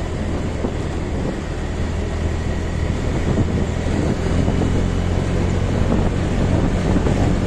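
Motorcycle engine running steadily while riding at low speed, with wind noise on the microphone.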